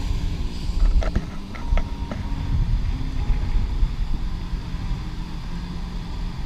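Wind rumbling on the action camera's microphone, with waves washing up the sand at the water's edge.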